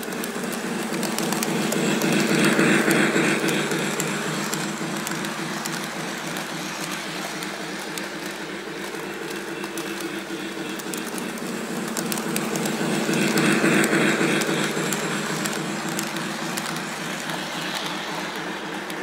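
Lionel LionChief Polar Express toy steam locomotive running laps on its track, its electric motor whirring and the wheels rolling with a fine clicking. It grows louder twice, about eleven seconds apart, as the train comes round close.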